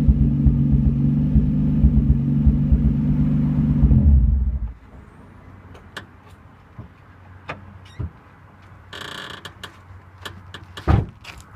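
Nissan 350Z's V6 engine running at a steady speed with a misfire, then switched off about four and a half seconds in. After that come scattered clicks, a short rustle and one loud thump near the end.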